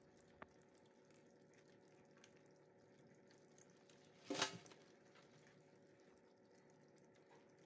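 Live crabs shifting in a plastic colander: faint clicks and rustles of legs on the mesh, with one short, louder scrabble about four seconds in. Otherwise near silence.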